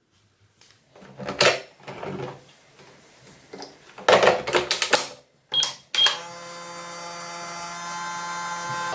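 Microwave oven being loaded and set: clattering and clunks, two short keypad beeps, then the oven starts and runs with a steady hum that slowly grows louder.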